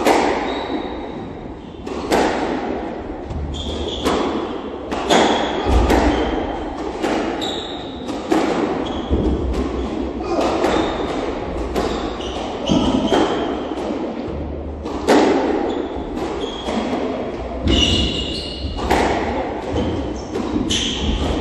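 Squash rally: the ball cracks off the rackets and thuds against the walls about every second, each hit echoing around the court, with short high squeaks of shoes on the wooden floor between the shots.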